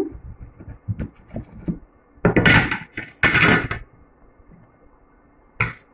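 A spoon handling grated soap in a glass bowl: a few light clicks, then two loud scrapes of about half a second each, and a single sharp knock near the end.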